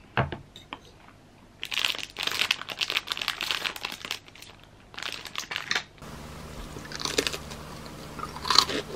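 Clear plastic cookie wrapper crinkling as the cookie is pulled out, in two spells, then crunchy bites into a crisp heart-shaped cookie.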